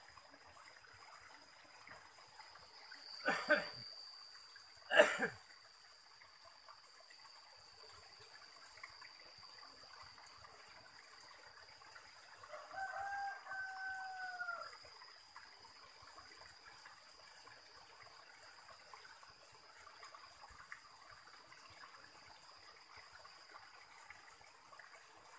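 Water trickling steadily over rocks, with a steady high thin tone above it. Two sharp knocks about three and a half and five seconds in. Halfway through, a rooster crows once, a held call of about two seconds that falls away at the end.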